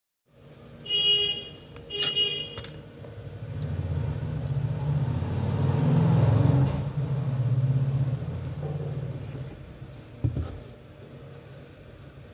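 Two short car-horn toots, then a passing vehicle whose engine sound swells to a peak about six seconds in and fades away. A single sharp knock near the end.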